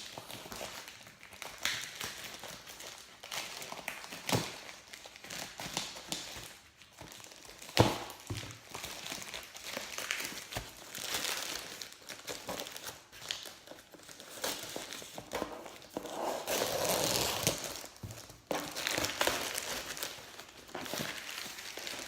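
Packaging being opened and unwrapped by hand: uneven crinkling and rustling, with a few sharp knocks, the loudest about eight seconds in, and a longer spell of crinkling near the end.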